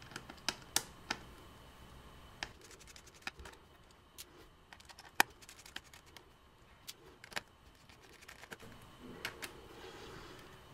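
Irregular, faint small clicks and ticks of a precision Torx T6 screwdriver working the tiny screws of a MacBook's battery connector board, and of the loosened screws being handled.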